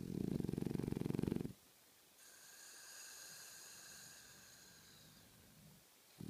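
French bulldog snoring: one loud, fluttering, rattling snore lasting about a second and a half, then a faint high whistle for about three seconds.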